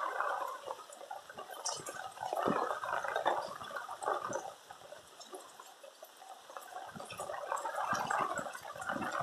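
Heavy rain pouring down, splashing and running water with scattered drip clicks, swelling louder and easing off twice.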